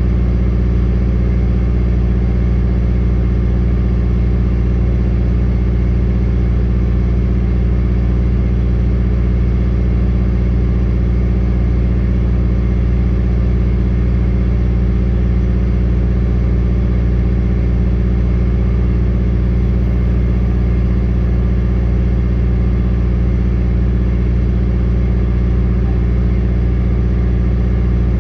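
Diesel skid steer engine idling steadily while it warms up.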